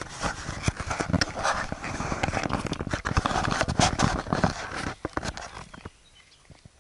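Dense scraping and crackling close to the microphone, with many sharp clicks, easing off about five seconds in to a few scattered clicks.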